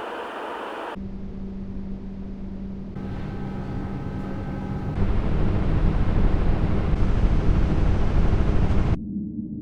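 Horror ambience sound effects played back to back with hard cuts: a hissing noise bed, then a dark drone with a steady low hum about a second in, joined by several higher sustained tones about three seconds in. At about five seconds it cuts to a loud, deep rumbling roar, which cuts off near the end to a dull, muffled low drone.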